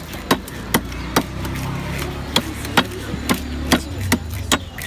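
Bhetki (barramundi) being scaled by drawing it against the edge of an upright boti blade: about nine sharp scraping strikes, roughly two a second, with a short pause in the middle, over a low steady background rumble.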